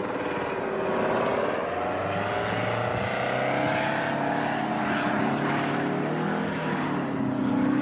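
V-22 Osprey prototype tiltrotor in flight, its engines and proprotors running with a pitch that slowly rises and falls.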